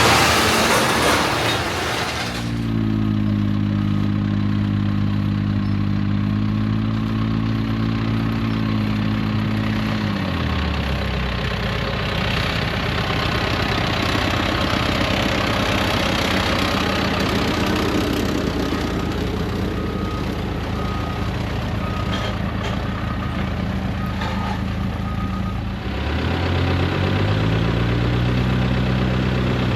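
Heavy diesel farm machinery engine running steadily. It drops to a lower speed about ten seconds in and speeds back up near the end. A loud rushing noise fills the first two seconds.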